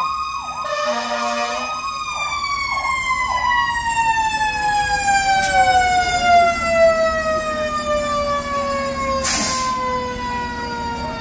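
Fire engine's sirens as it pulls in: a quickly wavering electronic siren and a short blast in the first two seconds, while a siren tone winds down, falling slowly in pitch. A short hiss of air comes near the end over the truck's low engine hum.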